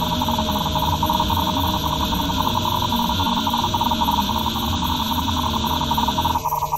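Dense electronic noise music: a steady high hiss and a rapidly fluttering mid-range tone over a rumbling low layer, with a brief break in the low end near the end.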